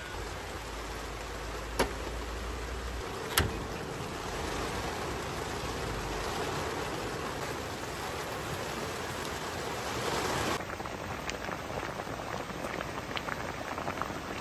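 Heavy rain falling steadily on a tent, a even hiss, with two sharp clicks about two and three and a half seconds in. About ten seconds in the rain sound drops abruptly to a softer patter with faint scattered ticks.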